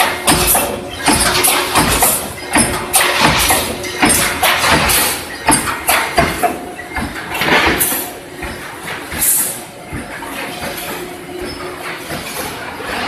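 Reinforcing mesh welding machine running: a rapid, irregular series of metallic knocks and clanks over a steady machine hum.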